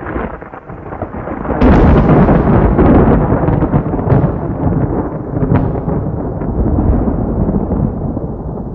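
Thunder: a sharp crack about a second and a half in, then a long rolling rumble with a few more sharp cracks, slowly fading toward the end.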